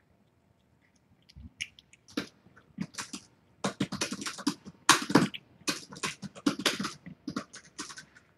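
Calico mother cat eating wet food from a stainless steel bowl: a run of quick, wet chewing and lip-smacking sounds, scattered at first and coming thick and fast from about halfway through.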